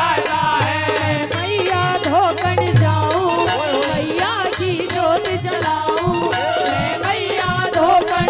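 Haryanvi devotional bhajan music performed live: a steady hand-drum beat under a wavering melody line.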